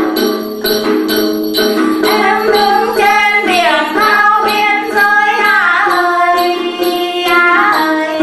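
Tày then folk song: a plucked đàn tính lute and jingling bells keep a steady beat, and from about two seconds in a woman's voice sings a long, wavering phrase that glides up and down in pitch.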